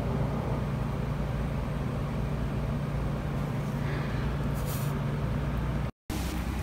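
Steady low mechanical hum with one constant low tone, which cuts off abruptly near the end.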